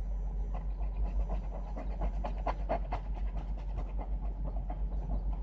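A coin scraping the coating off a lottery scratch-off ticket in quick, repeated short strokes.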